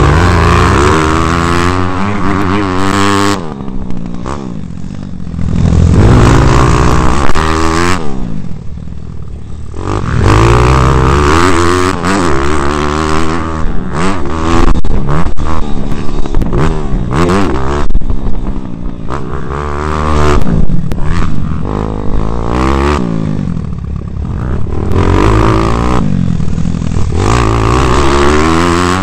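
Bucci pit bike's small single-cylinder engine being ridden hard, revving up and falling away again and again as the rider opens and closes the throttle through the gears. The engine eases off into quieter stretches about four seconds in and again at around nine seconds before pulling up again.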